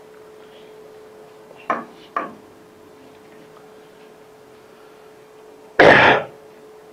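Two light knocks about half a second apart, then a louder noise lasting about half a second near the end, over a faint steady hum.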